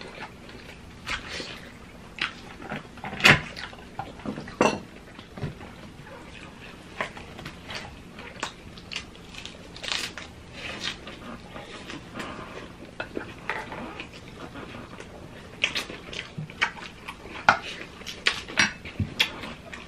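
Close-up eating sounds: chewing and crunching food, with scattered sharp clicks and taps of chopsticks, a spoon and a plastic fork against bowls.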